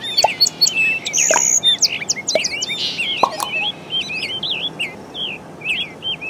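Many birds chirping, a dense chorus of short, quick, overlapping chirps and calls.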